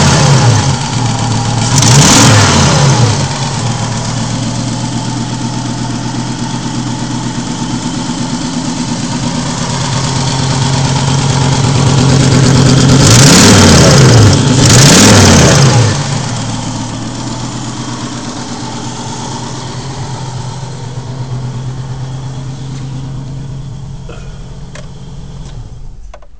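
Volvo 850 five-cylinder engine idling and being revved: two quick blips near the start, then the revs climb and peak twice before dropping back to idle. It has a leaking exhaust and a misfire and is down on power after a cylinder head replacement; a neighbour suspects the camshaft timing is off by a tooth.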